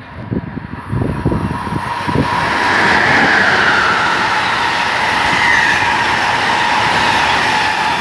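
Electric passenger train passing close by on the Northeast Corridor: a quick run of wheel thumps over rail joints, then a loud steady rush of wheels and air with a high hum.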